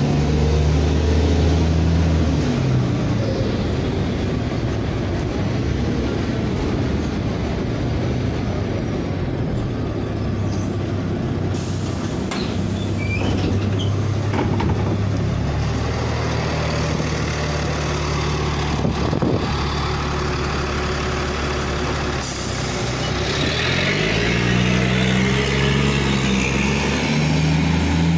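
Cummins ISBe 6.7 straight-six diesel of an Agrale MT15 bus with free-flow exhaust, heard on board by the rear doors, idling at a stop while air hisses from the pneumatic doors and brakes for about ten seconds. Near the end the engine pitch rises as the bus accelerates away.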